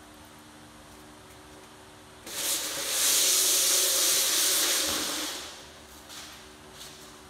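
A loud hiss lasting about three seconds, starting a little over two seconds in and fading out, over a faint steady hum.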